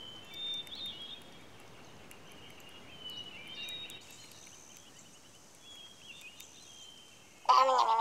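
Quiet outdoor ambience with faint birds chirping now and then. Near the end comes a short, loud, wavering pitched cry.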